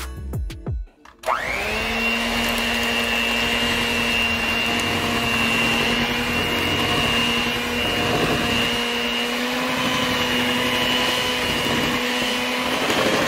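An electric kitchen mixer starts about a second in, spinning up quickly and then running at a steady speed, a steady whine over the motor noise, as it mixes cookie dough. Background music plays briefly before it starts.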